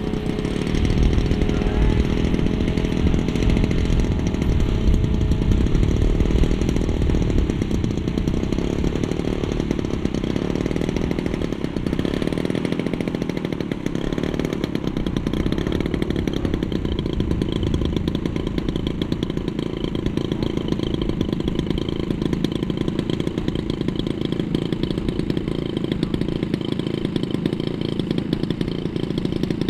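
Petrol engine of a large RC model tow plane running steadily.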